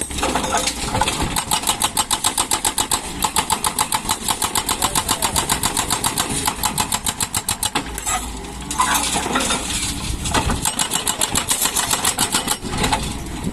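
Doosan DX140 excavator running, its machinery making a fast, even clatter of about seven or eight beats a second that breaks off briefly about eight seconds in and again near the end.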